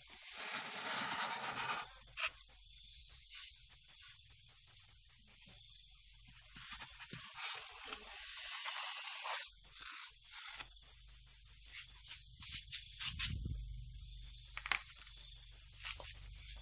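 Cricket chirping in a fast, even pulse of about five high chirps a second, stopping twice for a few seconds, with some rustling and a few light knocks from handling in between.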